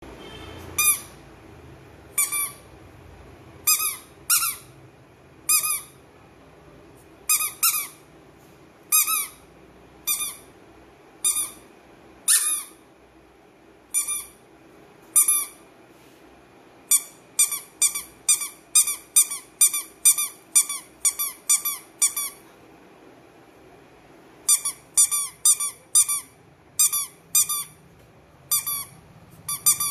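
Cow-shaped squeaky toy squeezed by hand over and over: short, high squeaks, one every second or two at first, then in quick runs of about three a second in the second half.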